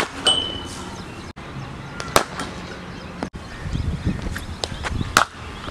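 Cricket bat striking the ball in practice nets: a handful of sharp cracks, with the loudest about two seconds in and again about five seconds in, between short edited clips of batting.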